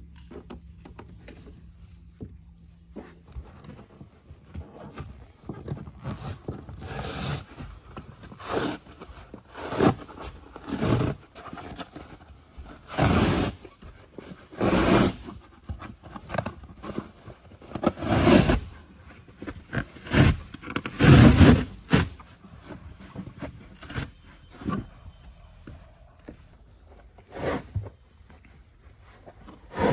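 Old carpet being ripped up off a bass boat's cockpit deck: a series of irregular tearing, scraping pulls, each lasting under a second, loudest and most frequent in the middle.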